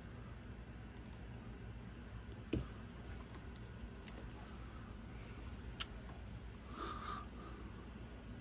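Two sharp clicks about three seconds apart, with a short softer scrape about a second after the second, as a ball-end hex driver and small screws are worked into an RC car's servo mount, over a low steady hum.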